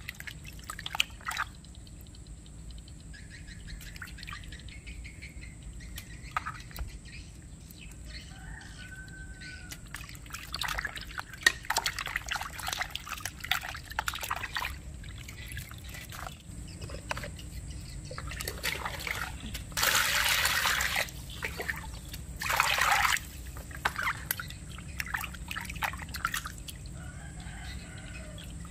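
Water splashing and swishing in a plastic basin as hands rub and wash raw squid, with two louder stretches of splashing of about a second each near the end.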